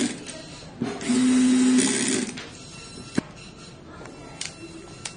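BSD-102L brushless compact electric screwdriver running for about a second and a half as it drives a small screw, a steady hum whose note changes just before the motor stops. A sharp click follows about a second later, then a few faint clicks.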